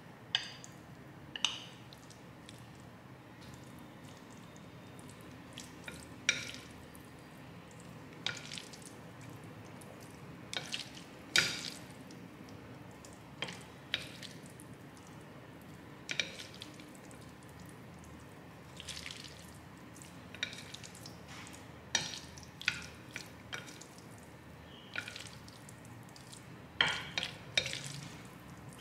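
Chopsticks clicking and knocking against ceramic plates at irregular intervals, about every second or two, while saucy noodles are scraped and tossed, with a quick cluster of clicks near the end.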